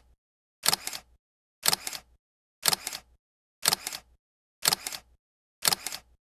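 Camera shutter clicks, each a quick double click, repeated six times at about one per second with dead silence between: a camera shutter sound effect.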